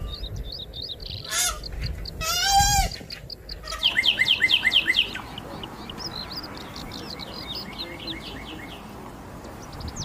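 High-pitched animal calls. A short call, then a wavering pitched call about two and a half seconds in, then a loud rapid run of chirps about six a second. Fainter repeated chirps follow until near the end.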